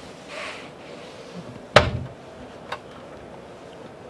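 Overhead cupboard door in a motorhome banging shut once, loud and sharp, with a lighter click about a second later: the door has no soft-close hinge.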